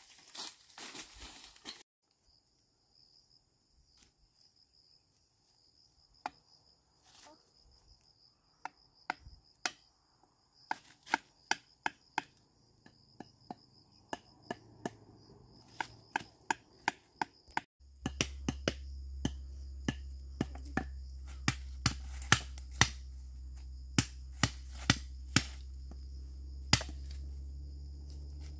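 Sharp chopping knocks on wood, scattered at first and coming quicker in the second half, over a steady high insect trill. A brief rustle at the very start, and a low steady hum that comes in suddenly about two-thirds of the way through.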